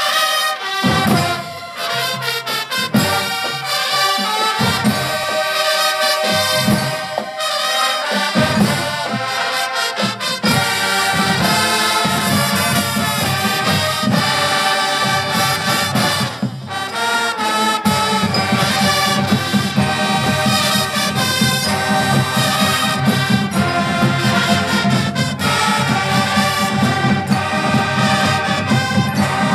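Combined high school marching bands playing together in full brass chords with drums. The opening bars are marked by separate accented low hits, and about two-thirds of the way in the low brass and drums fill in steadily.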